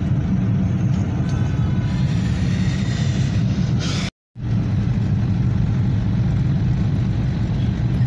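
Steady low rumble of motor vehicle traffic, with a brief total dropout about four seconds in.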